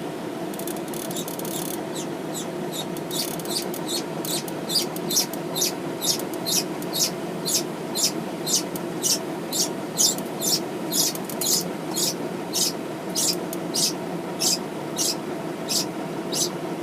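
A small bird peeping repeatedly in short, high-pitched calls, about two a second, over a steady low hum.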